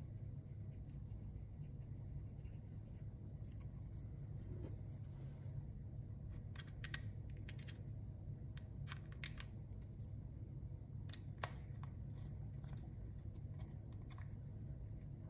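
Faint clicks and ticks of a small hex key and a plastic key fob case being handled while the case screws are driven in. They come in a few scattered groups over a low steady hum, the sharpest click about eleven seconds in.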